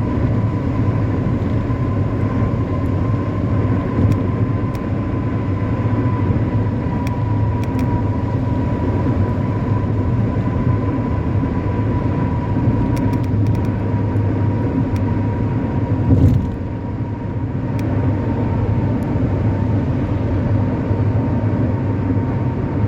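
Vehicle running steadily at highway speed: a low engine and road rumble with a steady high whine over it. A brief louder surge comes about two-thirds of the way through, then the noise dips for a moment.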